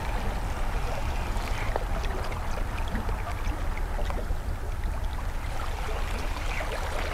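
Seaside ambience: small waves lapping against shore rocks under a steady low rumble, with a few faint ticks.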